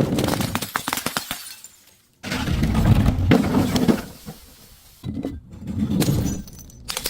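Glass being crushed, crackling and shattering in three bouts of crunching with short pauses between.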